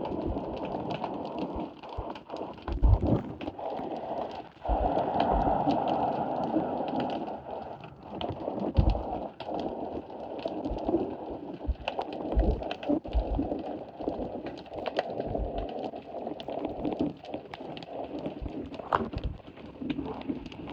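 Sea water sloshing and slapping under a wharf, with a steady wash and irregular knocks and low thumps throughout.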